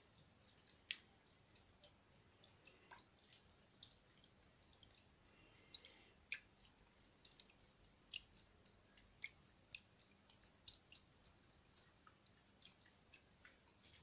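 Faint, irregular drips and small splashes of water falling into the basin of a small tabletop fountain, from its rock cascade and its bottle-cap water wheel.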